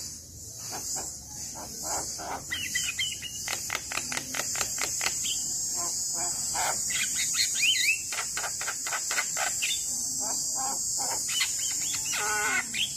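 Javan myna singing: a fast string of clicking, chattering notes with short whistled glides. A steady high insect drone, like crickets, runs beneath it.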